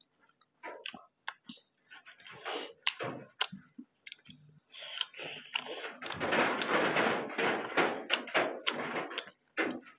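Close-up eating sounds of two people eating meat and rice by hand: wet chewing, lip-smacking and sharp mouth clicks, growing denser and louder from about six seconds in.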